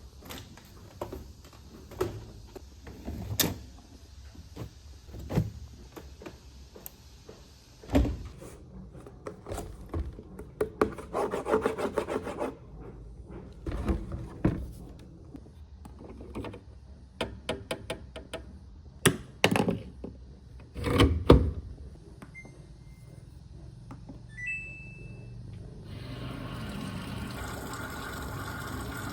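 Household handling noises: a run of knocks and clunks, two short electronic beeps a little past the middle, then a steady hiss starting near the end.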